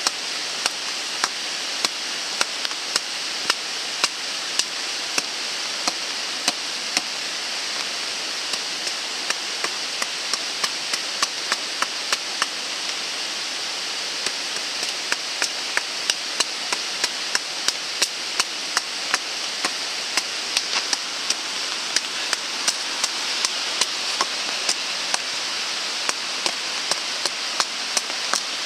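Heavy, steady rain, with frequent sharp irregular taps, a few each second, throughout.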